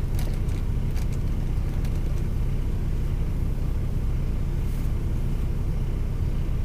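Steady low rumble of a DAF XF460 truck's diesel engine idling, heard from inside the cab, with a few faint clicks in the first couple of seconds.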